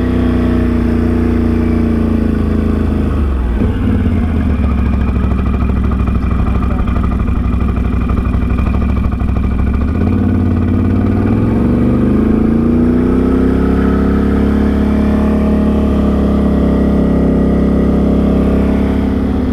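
Can-Am Outlander XMR 850 ATV's V-twin engine running under way. The engine note drops a few seconds in as it slows, then rises again around the halfway mark as it picks up speed.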